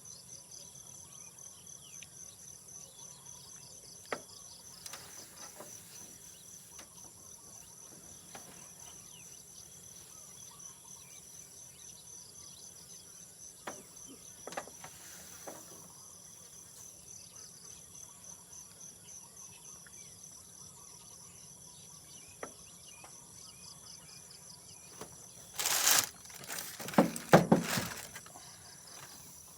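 Steady chorus of crickets and other night insects, a high pulsing trill, with a few scattered clicks. Near the end comes a loud burst of clattering and rustling.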